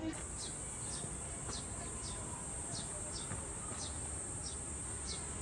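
Short, falling bird chirps repeating about once or twice a second over a steady, high-pitched insect whine.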